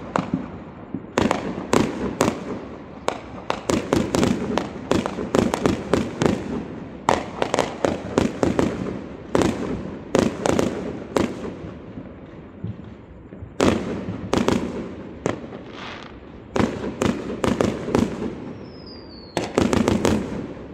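Fireworks going off in an irregular barrage of sharp bangs and crackles, many coming in quick clusters. A short falling whistle sounds near the end.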